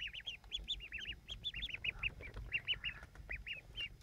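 Ducklings peeping, a quick, overlapping run of short, high chirps, several a second.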